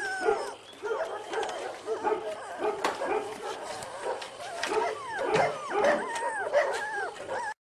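A litter of young puppies whimpering and yelping: many short, high squeaks overlapping, busiest near the end. The sound cuts off suddenly just before the end.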